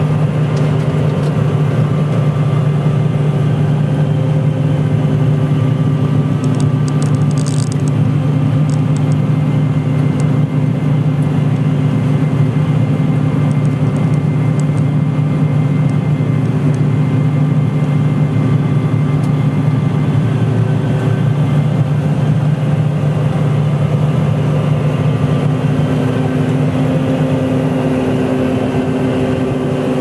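Combine harvester cutting wheat, heard from inside its cab: a steady engine and threshing-machinery drone with a low hum and a faint high whine through the middle.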